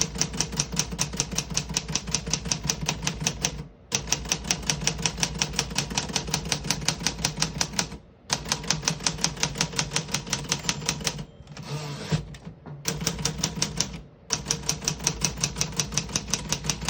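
1957 Remington Quiet-Riter portable typewriter being typed on fast and evenly, about six keystrokes a second, with all keys striking cleanly and none sticking. The typing breaks off in short pauses, and about twelve seconds in there is a short rasping slide ending in a knock.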